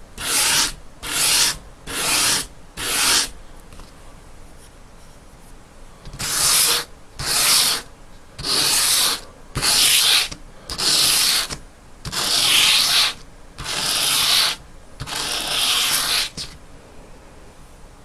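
Knife blade stroked over coarse sandpaper on a foam backing, a dry scraping hiss with each stroke: four quick strokes, a pause of about three seconds, then eight more slightly longer strokes. This is the shaping pass that grinds the primary bevel into a convex edge and raises a burr.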